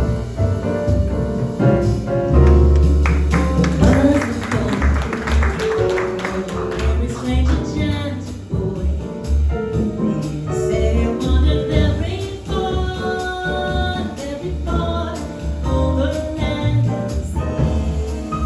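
Live jazz quintet playing: upright bass, piano and drums under a bending lead melody line.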